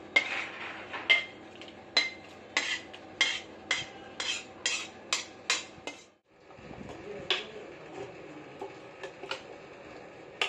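Steel ladle knocking and scraping against the inside of a steel kadai as curry is emptied out of it: a run of sharp ringing clinks, about two a second. The sound cuts out briefly about six seconds in, and a few softer clinks follow.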